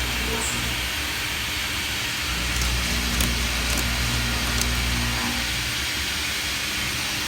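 ROMI D1000 CNC vertical machining centre running during a cutting demonstration: a steady hiss with a low hum that drops out for a moment about two seconds in and again near the end.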